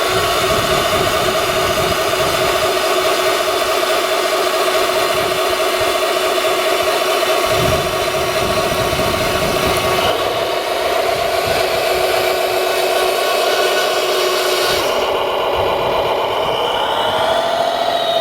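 Radio-controlled construction vehicle running steadily with an engine-like hum, its pitch rising about three-quarters of the way through.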